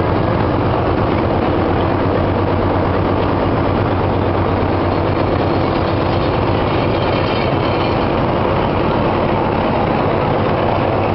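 Carpet-making machinery running: belt-driven rollers, chains and pulley wheels giving a loud, steady mechanical din with a low hum underneath.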